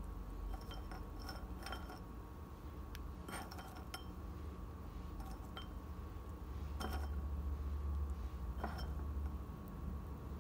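A handful of light, scattered glass or ceramic clinks as pecan halves are picked up and set into liquid gelatin in a ceramic ring mold, over a steady hum.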